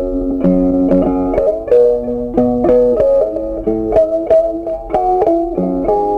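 Background music: a plucked guitar melody of quick, changing notes.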